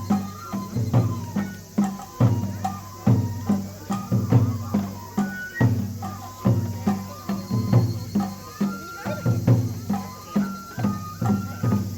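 Japanese festival music for a lion dance: drums struck in a steady rhythm of about two to three beats a second, under a high, held melody of the kind played on a bamboo flute.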